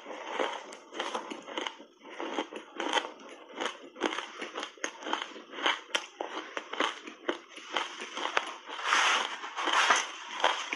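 Chewing and crunching of ice chunks coated in matcha powder: sharp, irregular crunches several times a second, with louder crunching stretches near the end.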